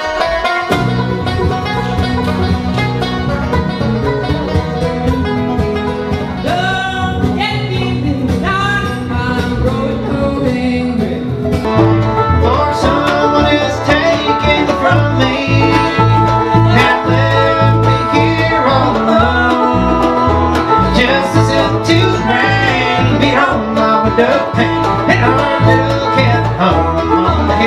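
Bluegrass band playing, with banjo and guitar picking and a voice singing. The low end grows fuller about halfway through.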